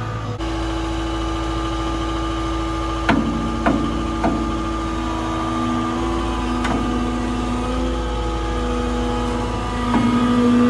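A heavy-equipment engine runs steadily at a constant speed. Several sharp knocks come over it, a cluster about three to four seconds in, another near seven seconds and one near the end.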